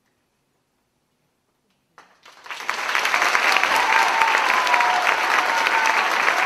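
About two seconds of near silence after the choir's last chord has died away, then audience applause that starts about two seconds in and builds within a second to steady, loud clapping.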